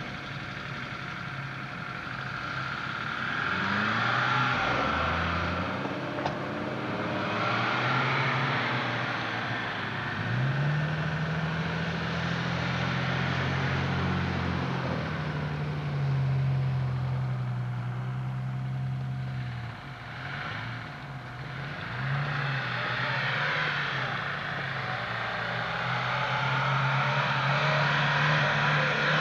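Off-road 4x4's engine revving and pulling under load through snow and mud, its note rising and falling repeatedly and dipping briefly about two-thirds of the way through.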